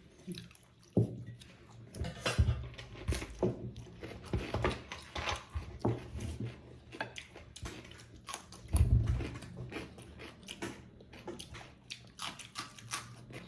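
A person chewing and biting into buffalo-meat momos close to the microphone, with irregular wet clicks of the mouth and a few heavy low thumps.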